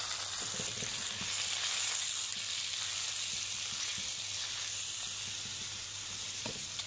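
Fresh squid pieces sizzling in hot oil in a pan, having just been added to fried pounded garlic and chili, with a steady frying hiss. A metal spatula stirring them gives a few faint knocks.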